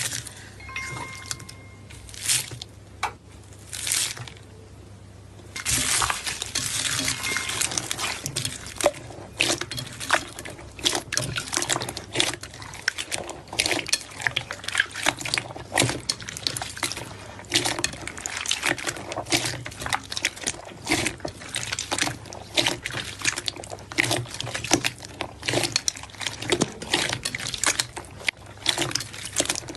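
Slime being squished and kneaded by hand: a few short separate bursts, then from about six seconds in a dense, continuous run of wet, sticky clicks and squelches.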